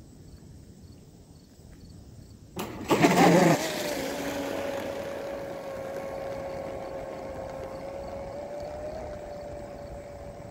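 Pro Boat UL19 RC outrigger hydroplane launching into a speed run. About two and a half seconds in, its brushless electric drive spins up with a sudden loud rush of prop spray. It then settles into a steady high motor-and-propeller whine that slowly fades as the boat runs away at speed.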